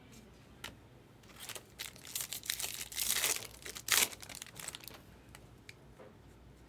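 Foil wrapper of a baseball card pack being torn open and crinkled: a run of crackling, rustling bursts, densest in the middle, with a sharp crackle about four seconds in.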